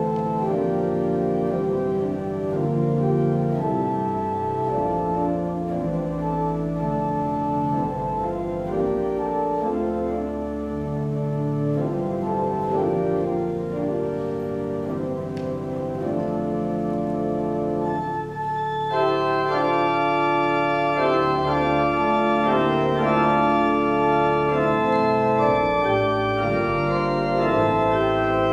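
Pipe organ playing slow, sustained chords. About two-thirds of the way through, more stops come in and the sound grows fuller and brighter.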